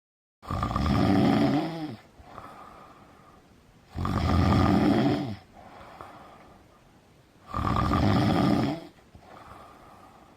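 A person snoring: three loud snores about three and a half seconds apart, each followed by a quieter, longer breath. The snoring starts after a moment of silence, about half a second in.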